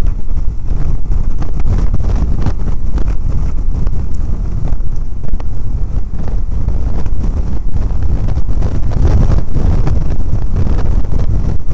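Loud wind rushing and buffeting over the microphone of a motorcycle at highway speed, with the bike's engine and road noise mixed in beneath it.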